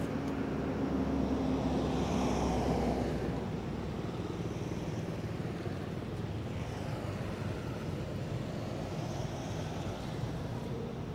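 Steady low rumble of outdoor background noise, with a low hum that fades out about three seconds in.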